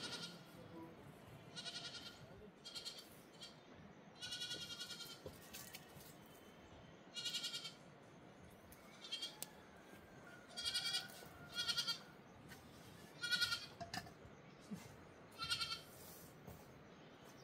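High-pitched bleating of young flock animals: about ten separate calls at uneven intervals, each with a wavering quiver, one of them held for about a second.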